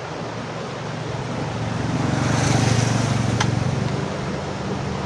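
A motor vehicle passing by: a low engine hum with road noise that swells to its loudest about two and a half seconds in, then fades. A single sharp click comes a little after the peak.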